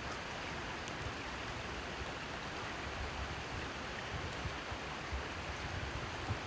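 Steady hiss with soft low rumbles underneath and a couple of faint ticks near the start.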